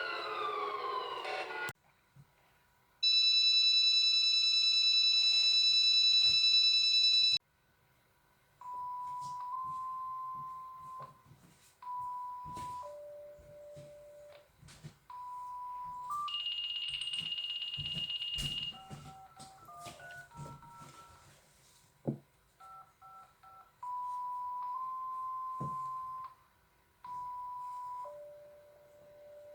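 Electronic emergency-alert tones. A siren-like sweep ends about two seconds in, followed by a loud, steady high-pitched chord for about four seconds. After that comes a string of held beeps, mostly on one pitch and now and then stepping down to a lower one, with a brief higher tone about halfway through.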